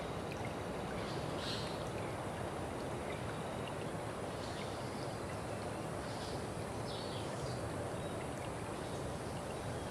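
Running water of a stream or brook, a steady even rush, with a few brief faint higher sounds over it.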